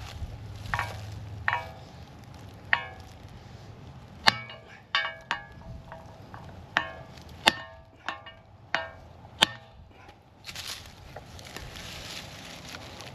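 Metal striking metal: about a dozen sharp, irregular clanks, each with a short ring, as steel tools or parts are hit or set down. After about ten seconds they stop and a steady hiss of wind noise takes over.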